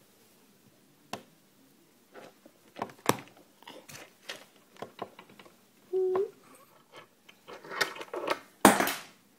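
Handling noise from a camera being fiddled with at close range by a young child: irregular taps, clicks and rubs on the device, with a brief low tone about six seconds in and a louder scraping rub near the end.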